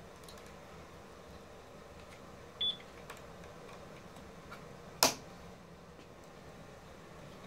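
Small plastic clicks as temperature-sensor wires and clips are pressed into the plastic wire channel of a Honda Civic Hybrid battery pack, with one sharp snap about five seconds in. A short, high beep sounds about two and a half seconds in.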